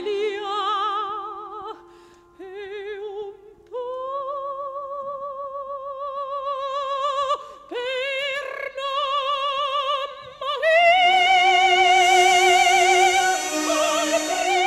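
Operatic singing with a wide vibrato over backing music: long held notes, swelling to a loud, high sustained note about eleven seconds in.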